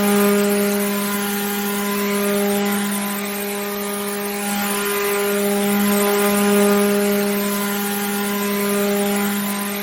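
Electric water pump motor running steadily: a constant hum with a stack of overtones and a hiss above it, swelling and easing slightly in loudness every few seconds.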